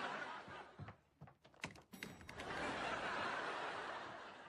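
Sitcom laugh track: audience laughter in two swells, the second fading away near the end, with a few short clicks in the lull between them.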